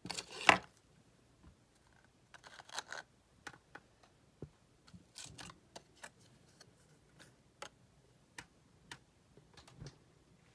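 Trading cards handled and set down on a wooden dresser top: a loud rustle at the start, another about two and a half seconds in, then scattered light clicks and taps.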